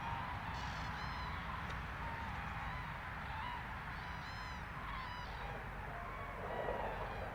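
Birds calling repeatedly, short arched calls at a few different pitches, over a steady rushing noise.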